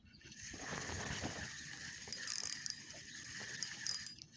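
Fishing reel being cranked to retrieve line: a continuous rapid clicking and grinding of its gears. The angler says the reel, once smooth, now sounds like it has grit in it.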